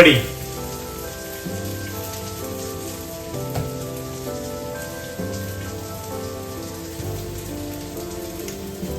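Instrumental background music: sustained chords that shift every second or so, over a faint hiss.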